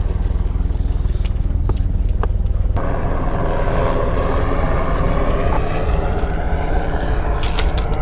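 Steady low outdoor rumble from wind and road noise on a chest-worn action camera; the sound changes abruptly about three seconds in. Several sharp clicks and knocks come near the end as gear is handled in a car's open trunk.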